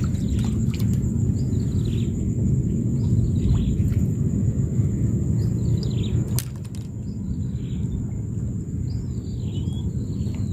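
Small birds chirping repeatedly over a steady low rumble of wind on the microphone, with a thin steady high-pitched tone throughout. A single sharp click about six seconds in.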